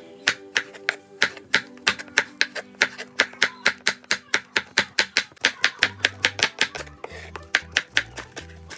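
Chef's knife slicing eggplant on a wooden cutting board, a quick steady run of sharp chops at about three to four strokes a second, over background music.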